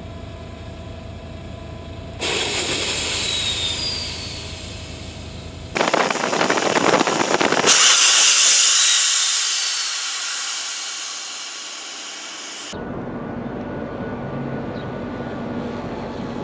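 Launch of a ScanEagle drone from its pneumatic catapult: a sudden, loud rushing hiss about six seconds in, then a high hiss that fades away. The sound changes abruptly several times between stretches.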